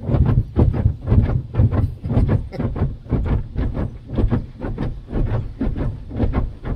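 Automatic car wash heard from inside the truck's cabin: a fast, irregular run of thumps and slaps, several a second, over a low rumble, as the wash equipment beats against the body and windows.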